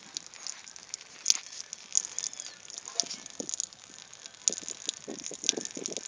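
Water and air spitting irregularly from the outlet pipe of an air-lift well pump driven by a refrigerator compressor, a crackling, spattering sputter with a few short gurgles near the end.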